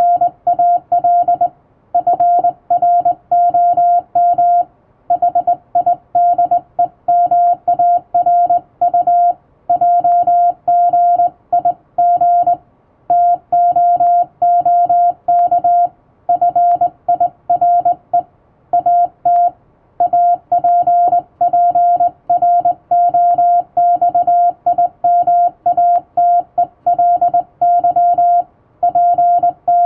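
Morse code sent by hand on a straight key: a single steady beep keyed on and off in dots and dashes, with brief breaks between letter groups.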